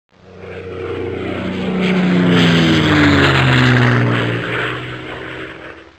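Propeller airplane flying past: its engine tone swells to its loudest about halfway through, falls in pitch as it passes, and fades away.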